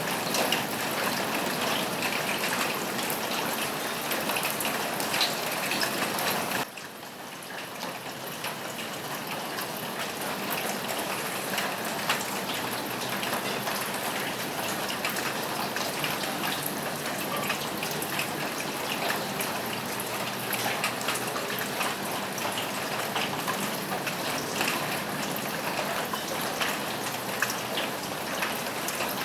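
Steady rain falling on a roof, with separate drop hits ticking through the hiss. About seven seconds in the sound abruptly turns quieter, then builds back to its former level over a few seconds.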